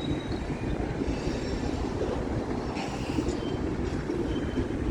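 Freight cars of a long mixed manifest train rolling past: a steady rumble of steel wheels on the rails, with a few brief faint high-pitched wheel squeals.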